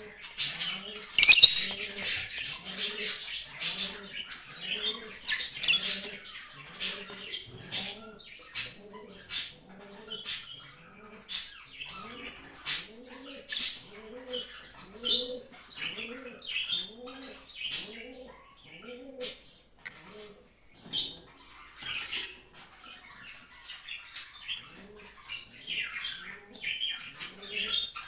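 Caged lovebirds calling: short, sharp, high-pitched chirps repeated about one or two a second, with a louder, harsher flurry about a second in.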